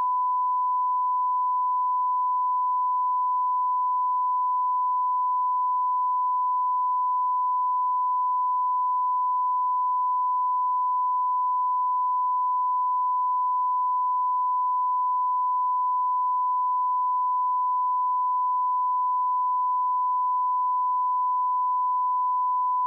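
Continuous 1 kHz sine-wave test tone of the kind that accompanies TV colour bars, one steady pitch at an even level with no break. It is the line-up tone used to set and check audio levels.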